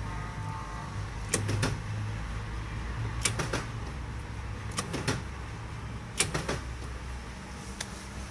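2002 Ford Focus driver's door lock mechanism clicking as it is worked repeatedly: five quick groups of sharp clicks about a second and a half apart, over a steady low hum.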